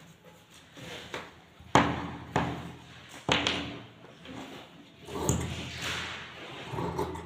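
Tailor's scissors knocking against the cutting table and starting to snip through cloth: three sharp clacks in the first few seconds, then a stretch of cloth rustling and handling.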